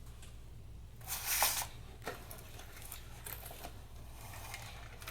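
Consumer fireworks items and their packaging being handled: a rustle about a second in lasting about half a second, then a few light knocks and ticks.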